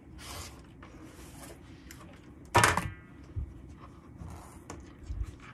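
Quilting tools handled on a cutting mat: soft rustling, then one sharp clack about two and a half seconds in as a plastic quilting tool is set down, followed by a few light taps.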